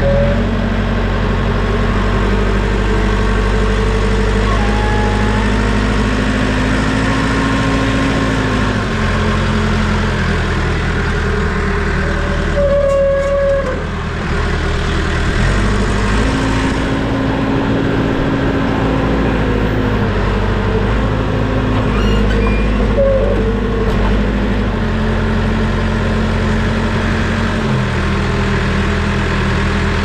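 Caterpillar backhoe loader's diesel engine running as the front loader bucket is worked, its speed stepping up and down several times with load. A few short higher tones come and go over the engine.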